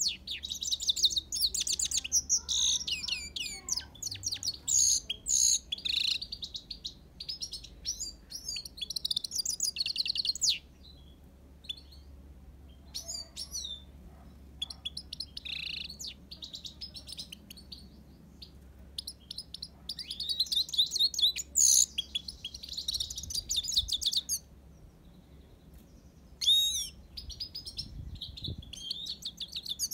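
Himalayan (grey-crowned) goldfinch singing: fast, high twittering song of trills and chirps in long runs, the longest lasting about the first ten seconds, broken by a few short pauses.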